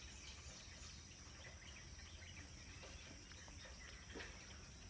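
Faint outdoor ambience: a steady high-pitched insect drone, with a few short falling chirps and a small tap about four seconds in.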